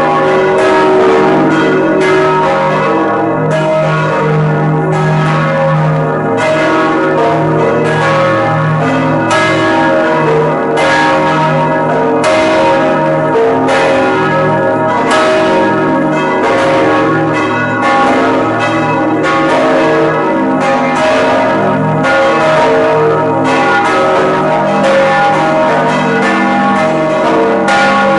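The church bells of Stockholm Cathedral (Storkyrkan) ringing together, heard up close inside the bell tower. Loud, overlapping clangs come about once a second, each stroke ringing on under the next in a dense wash of bell tones.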